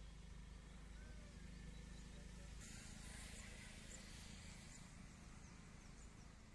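Near silence: faint outdoor ambience with a steady low rumble and a few faint, high, brief chirps.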